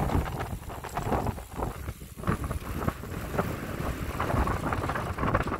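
Wind buffeting the microphone in uneven gusts, a deep rushing noise with many short irregular surges.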